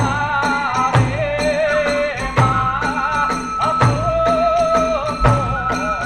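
Kagura hayashi music: a high bamboo flute melody, held and wavering, over regular taiko drum strokes and ringing hand cymbals.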